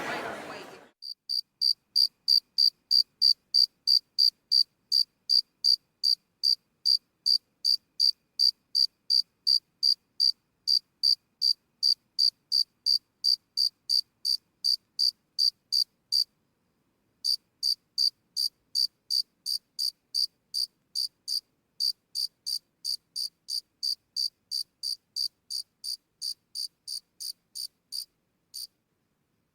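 A single cricket chirping in a steady rhythm of short high chirps, about two or three a second, with a pause of about a second past the middle. A crowd's chatter fades out in the first second.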